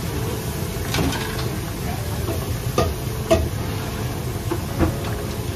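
Busy restaurant kitchen: a steady low rumble from the range hood and wok burners, with a few sharp clinks and knocks of a metal utensil against a wok and dishes, the loudest about three seconds in.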